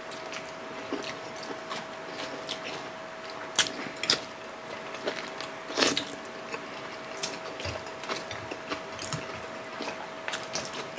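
Close-up wet chewing and lip-smacking of people eating fried milkfish and rice by hand, with many short sharp smacks and clicks, the strongest around four and six seconds in. A faint steady hum sits underneath.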